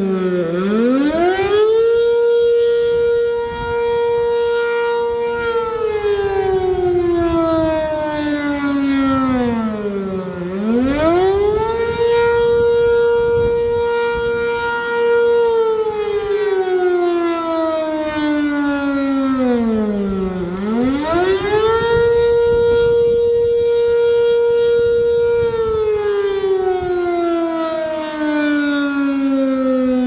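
Sentry 7V8 outdoor warning siren sounding the wailing attack signal, here used for the weekly fire test. Each cycle the pitch rises quickly, holds high for about four seconds, then slides slowly back down, repeating about every ten seconds: three full wails.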